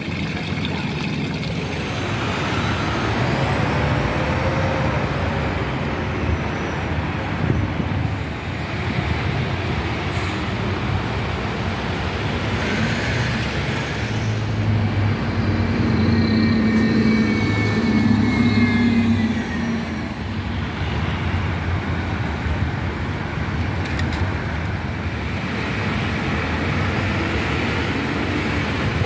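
City street traffic: cars and buses passing steadily. A heavier vehicle's engine hum grows louder about halfway through, then fades.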